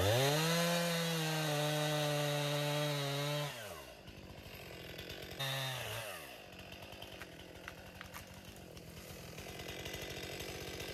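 Stihl MS 261 C-M two-stroke chainsaw revved to full throttle and held for about three and a half seconds while cutting through a bent spring-pole tree, then dropping to idle. A short second burst of throttle comes about five seconds in, falling back, and the saw then idles.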